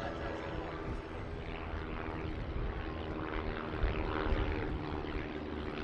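Piper L-4 Grasshopper light aircraft flying by, their small propeller-driven piston engines droning steadily.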